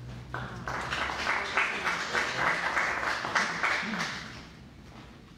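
Audience applauding, starting about half a second in and dying away around four seconds.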